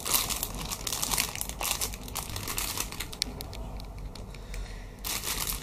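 Clear plastic bag around a squishy toy crinkling as it is handled, in irregular crackles that thin out partway through and pick up again near the end.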